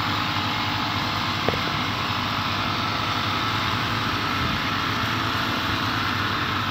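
Engine of a motorized crop sprayer running at a steady speed, with a short click about a second and a half in.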